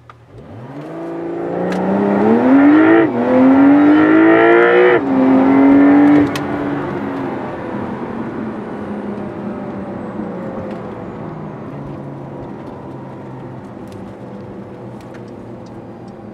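Stock exhaust of a 2025 Porsche 911 Targa 4 GTS's flat-six, heard from inside the cabin in Sport Plus mode. The engine revs up under hard acceleration and drops in pitch at two quick upshifts, about three and five seconds in. It then eases off and settles to a quieter, steady run.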